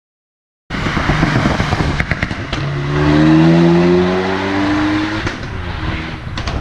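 Renault Mégane Renaultsport's four-cylinder turbo engine accelerating hard, its note rising steadily in pitch, after cutting in suddenly under a second in. A few sharp clicks sound over it.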